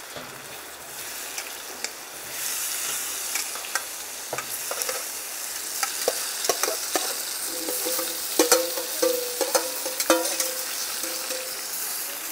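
Diced carrots and potatoes sizzling in hot oil on a metal comal, the frying swelling about two seconds in as they hit the oil. A metal spoon clinks and scrapes repeatedly as the last pieces are scraped out of the enamel pan, the loudest clinks coming late.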